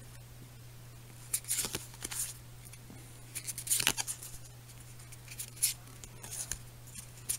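Pokémon trading cards being handled and flipped through by hand: a few short papery slides and rustles, with a steady low hum underneath.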